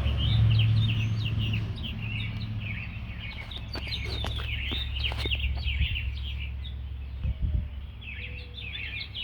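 Many small birds chirping busily and continuously over a low steady rumble, with a few soft knocks about seven seconds in.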